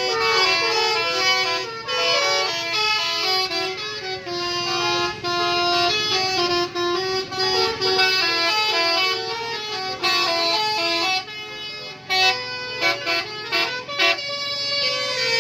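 Bus 'telolet' horn, a set of electric multi-tone horns, playing a tune of held notes that step from pitch to pitch, several sounding together, with a few short breaks near the end.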